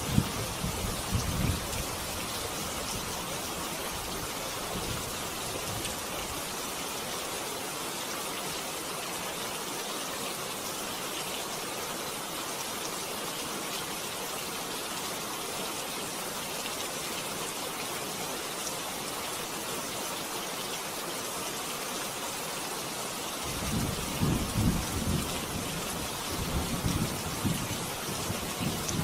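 Steady heavy rain hissing, with low rumbles of thunder swelling and breaking in the first couple of seconds and again over the last five or so.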